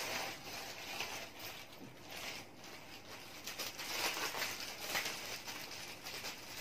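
Bubble wrap crinkling and rustling as it is pushed and folded into a handbag, in irregular spurts with quieter gaps between.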